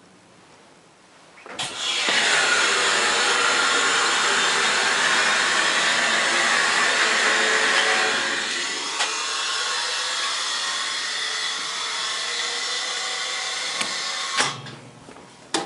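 Hydraulic elevator power unit in the machine room running: a loud, steady rushing noise that starts abruptly about a second and a half in, eases slightly about halfway through, and cuts off suddenly with a clunk near the end.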